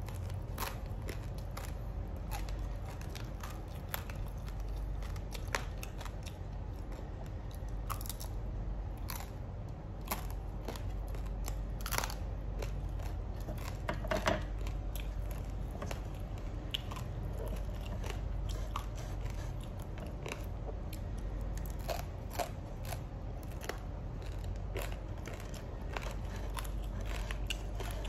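Close-up eating sounds: chewing with many short, wet mouth clicks, and now and then a sharper click as food is picked from a metal bowl.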